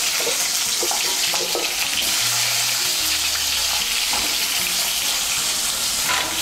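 Potato wedges frying in hot mustard oil in a kadai: a loud, steady sizzling hiss.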